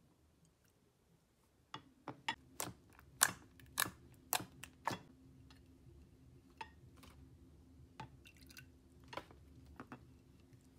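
Slime being stirred and squished by hand and with a plastic spatula: a run of sharp, wet pops and clicks that starts almost two seconds in, comes thickest over the next few seconds, then thins out.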